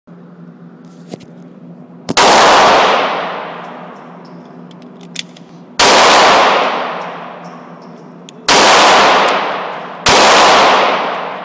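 Glock 17 9mm pistol fired four times at an uneven slow pace, each shot followed by a long echoing decay from the indoor range. A steady low hum runs underneath.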